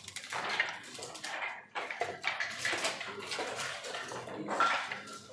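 Backgammon dice rattling as they are shaken and rolled, then checkers clicking against the board as they are moved.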